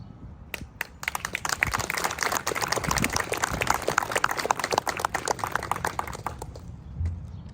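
Audience applauding. A couple of single claps come first, the clapping swells within about a second, and it dies away after about five seconds.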